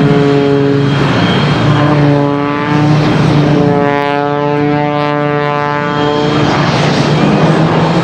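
Loud engine and propeller of an MXS aerobatic monoplane with a 540 cubic inch, 370-horsepower Sky Dynamics engine, flying a display. Its pitch steps up and down several times as the power and flight path change.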